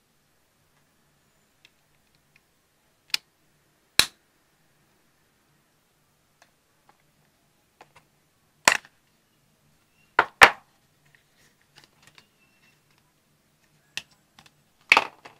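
Sharp clicks and taps from handling the AirPods and their hard plastic charging case. There are about seven, irregularly spaced, with two in quick succession about two-thirds of the way through.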